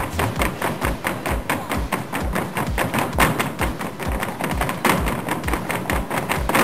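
A group of performers beat out a body-percussion rhythm on white plastic stools and a wooden floor: a quick, steady pattern of thuds and sharp taps.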